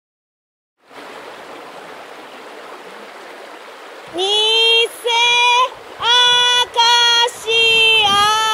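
After a moment of silence, a river starts rushing over stones. About four seconds in, a high voice starts calling out the name of a plant, false acacia, in long held notes broken into five drawn-out syllables, much louder than the water.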